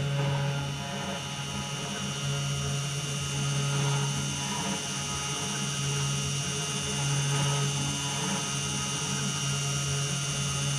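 Small desktop CNC router (3018 Pro) running steadily as it carves a design into a wooden board, its spindle motor giving a steady hum.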